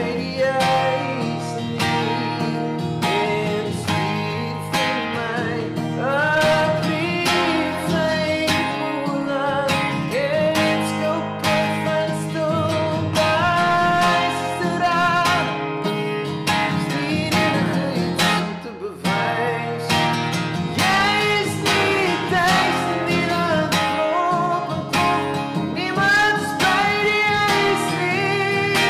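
A man singing a song to his own strummed acoustic guitar.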